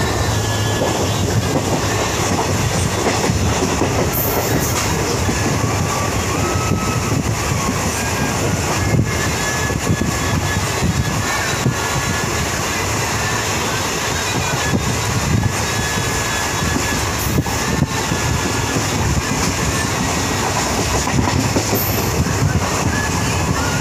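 Train running steadily along the track, heard from aboard: a continuous noise of wheels on rails with a few sharp clacks.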